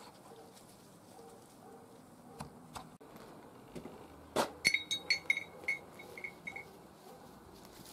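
A sharp knock, then about eight quick ringing clinks at one pitch, roughly four a second: a utensil tapped against a dish.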